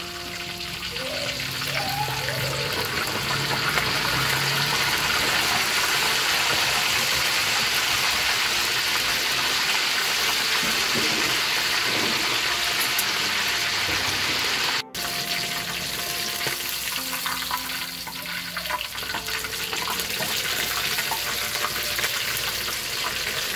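Duck pieces deep-frying in a wok of hot oil: a steady, dense sizzle and bubbling, which cuts out for an instant about fifteen seconds in.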